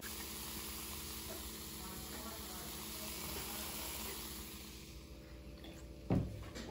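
Carbonated cola fizzing in a cup, a steady hiss of bursting bubbles that fades over the last couple of seconds, then a short thump near the end.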